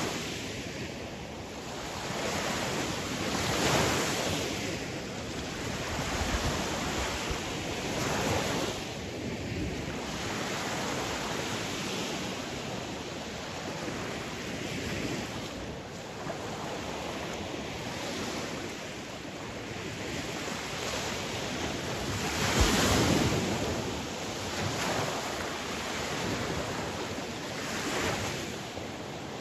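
Sea waves breaking and washing on a shore, swelling and receding every few seconds, with the largest surge about three-quarters of the way through.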